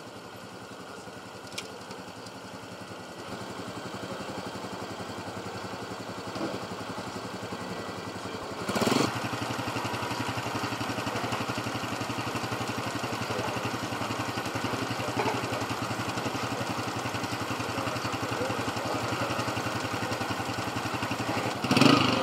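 Several small motorcycle engines idling together, growing louder over the first few seconds, with a brief louder surge about nine seconds in and another near the end.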